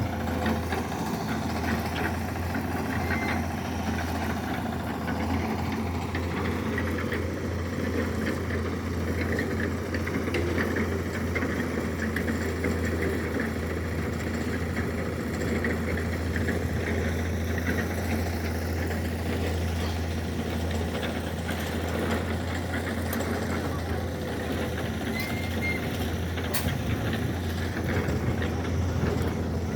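Heavy machine engine running steadily at idle, with scattered faint clicks and knocks over it.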